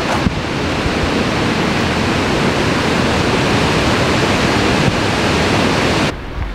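Loud, steady rushing noise with an unsteady low rumble, cutting off abruptly about six seconds in.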